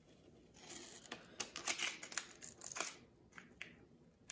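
Protective backing being peeled off an acrylic panel: a crackling, tearing rustle with sharp little clicks for about two seconds, then a few faint ticks.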